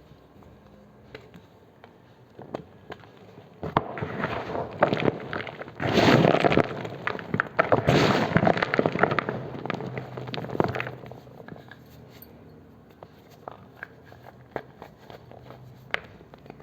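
Knife cutting and crushing gym chalk, a dense crunching that builds about four seconds in and is loudest in the middle. It then thins out to scattered crackles and clicks.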